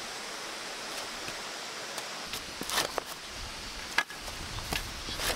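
Shovel and hoe digging into loose soil: a few sharp strikes and scrapes in the second half, the loudest about four seconds in, over a steady background hiss.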